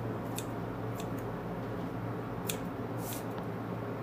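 Grooming scissors snipping a dog's long fur, about five short, crisp snips at uneven intervals, over a steady low hum.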